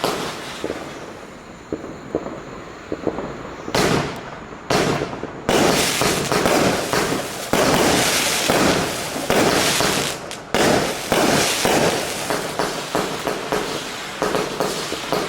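A 146-shot consumer fireworks cake with 20, 25 and 30 mm tubes firing: scattered pops at first, then from about four seconds in a dense, rapid barrage of launches and bursts that runs on almost without a break.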